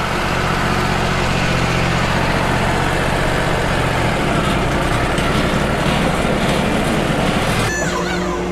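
Wood-Mizer LT35 HD band sawmill running, its band blade cutting lengthwise through an eastern red cedar log. Near the end the sound shifts: a brief falling whine, then a steadier hum.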